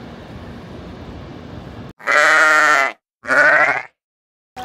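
Comedic bleating sound effect: two loud, wavering animal bleats, the second shorter, dropped into dead silence after a steady outdoor hiss of wind and water.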